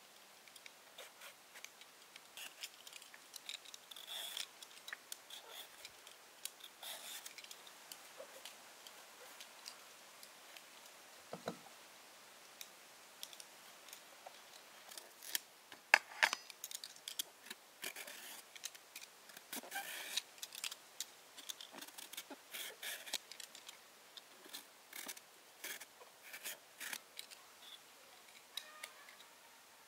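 An irregular run of short, sharp snips and clicks like scissors or shears cutting, with a louder click about sixteen seconds in.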